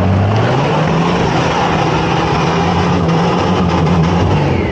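Vehicle engine revving up over about a second, then holding a steady pitch under load, and easing off just before the end.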